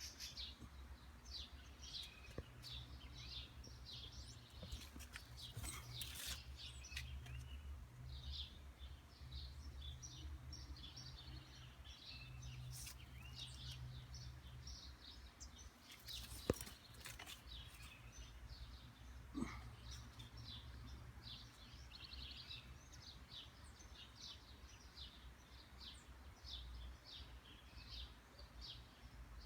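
Many small birds chirping and twittering in quick, overlapping high calls, over a faint low rumble. A single sharp click comes about 16 seconds in.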